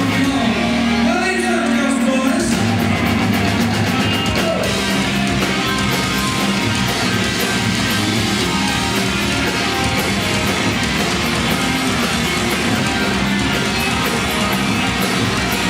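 Live rock band playing on stage: electric guitars over a drum kit, loud and dense. The low end drops out briefly near the start and comes back about two and a half seconds in.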